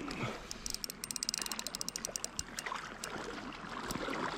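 Spinning reel clicking rapidly for about a second as a hooked trout is reeled in, over water trickling and sloshing at the shoreline.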